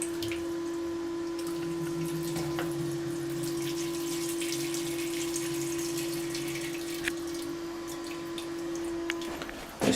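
Balterley Beo Regent toilet cistern refilling after a flush: water running into the cistern as a steady hiss, with a steady tone under it.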